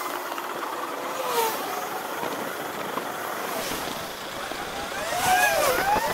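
Sped-up road noise from a bicycle ride: steady wind rush and traffic, with quick warbling pitch sweeps near the end.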